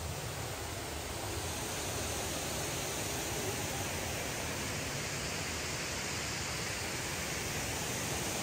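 Steady rush of cascading water, an even unbroken roar.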